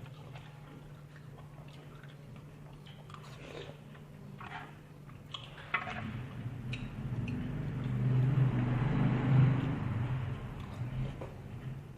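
A person eating tteokbokki and ramen noodles close to the microphone: scattered small clicks at first, then chewing that grows louder and busier through the second half, over a steady low hum.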